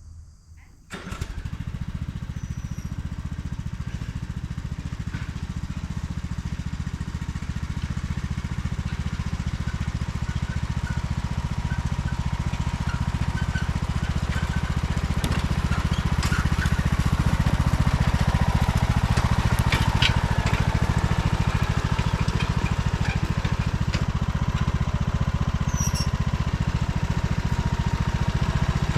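Gasoline engine of a Jansen wood chipper running steadily, coming in suddenly about a second in and growing slightly louder over the first half.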